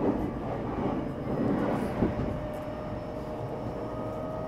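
JR East E233-6000 series electric train running, heard from inside the car: a steady rumble with one short knock about two seconds in, and a faint steady whine that grows clearer from about halfway.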